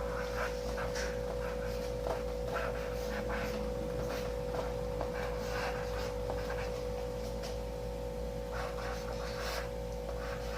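Handwriting: short, irregular scratchy strokes of a pen as words are written out, over a steady hum.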